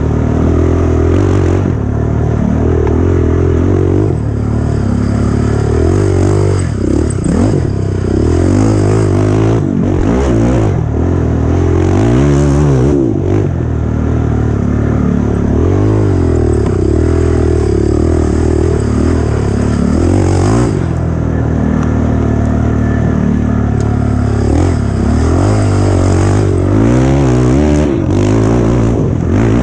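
Dirt bike engine, loud and close, revving up and down again and again as it is ridden hard over a rough trail. A few brief knocks and rattles come through from the bike.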